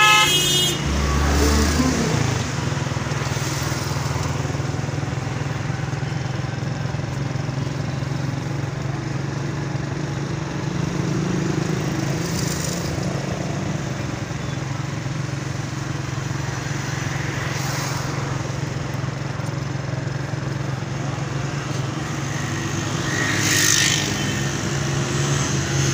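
Steady drone of vehicle engines in road traffic, with a short horn toot right at the start.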